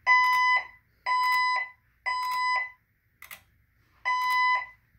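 Fire alarm speaker strobes sounding the temporal-three evacuation tone: three half-second beeps about a second apart, a pause of about a second and a half, then the next group of three. This is the second-stage (evacuate) signal played between the voice evacuation messages.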